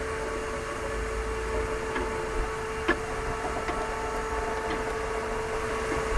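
Steady mechanical hum with a few faint clicks scattered through it.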